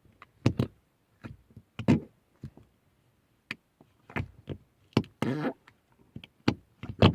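Glittery slime being squeezed and pressed by hand, giving a string of small, irregular sticky clicks and pops, with one longer squelch about five seconds in.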